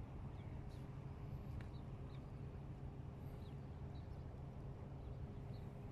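Faint low rumble of wind and sea at the waterside, with faint short high chirps every second or so.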